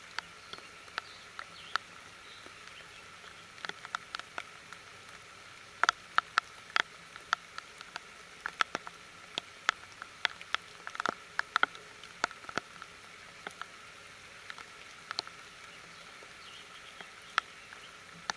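Light rain pattering, with a steady hiss and irregular sharp drops landing close by. The drops come thickest in the middle stretch and more sparsely toward the start and end.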